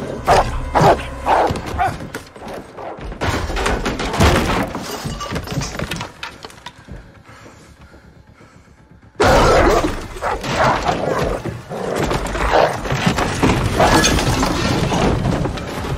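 Film sound effects of a dog attack: a dog barking amid crashing and shattering glass. After a quiet lull there is a sudden loud crash about nine seconds in.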